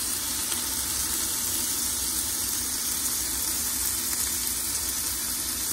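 Diced onion, carrots, celery and minced garlic sizzling steadily in hot oil in a pot.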